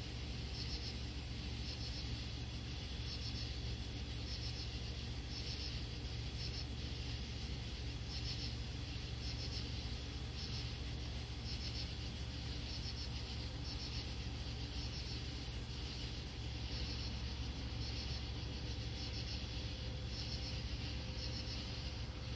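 Night insects chirping: short pulsed chirps repeating roughly once a second, over a steady low hum.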